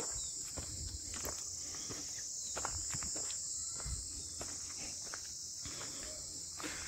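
Steady high-pitched insect chorus, with scattered footsteps on a rough dirt trail.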